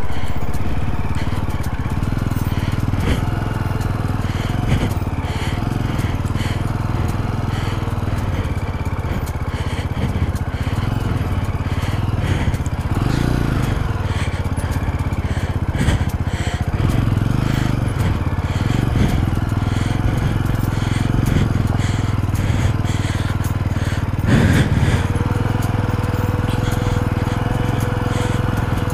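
Jawa 42 motorcycle's single-cylinder engine running steadily under way on a rough off-road track, with crunching and scraping from the tyres on loose stones and sand.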